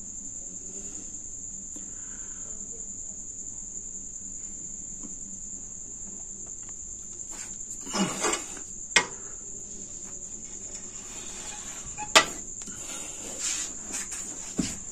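Crickets chirring in one steady high-pitched drone, with a few sharp knocks about nine and twelve seconds in.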